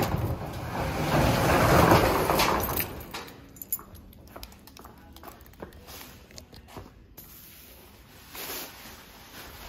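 Metal roll-up storage unit door being unlocked and rolled up. The noise is loud for the first three seconds, loudest about two seconds in, then gives way to faint scattered knocks and handling.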